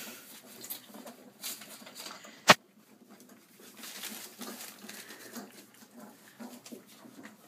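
Four-week-old Irish setter puppies nursing from their mother: faint suckling and shuffling sounds, with one sharp click about two and a half seconds in.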